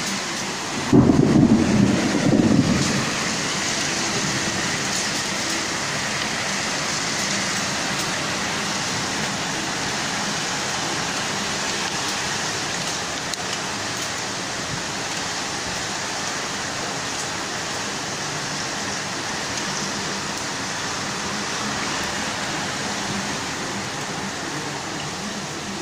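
Heavy rain pouring down in a steady, loud rush. About a second in, a louder low rumble lasts a couple of seconds and then settles back into the rain.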